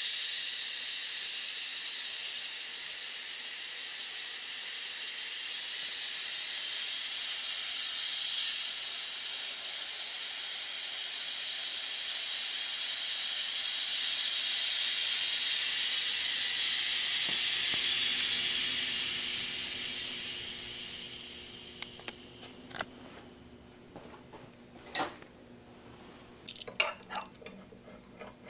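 Residual CO2 venting through the bleed valve of a StepX-3000 CO2 compressor and extraction machine: a loud, steady high-pitched hiss that tails off and dies away about twenty seconds in as the system empties of pressure. A few light clicks and clinks follow near the end.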